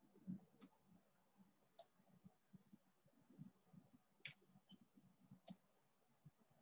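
Four faint, sharp clicks of a computer mouse, a second or more apart, over quiet room tone.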